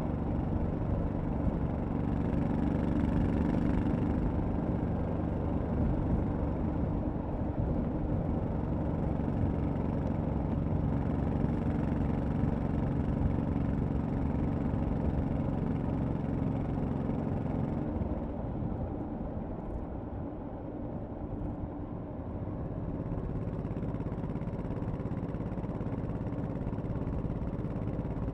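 Honda Shadow 1100 V-twin motorcycle engine running under way with a steady drone. About two-thirds of the way through, the engine note drops lower and quieter, then picks up slightly again.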